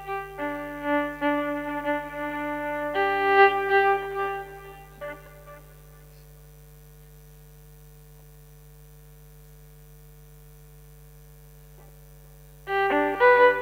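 Instrumental music with a clear melody. About five and a half seconds in it drops to a quiet, steady held tone, and the melody comes back loudly near the end.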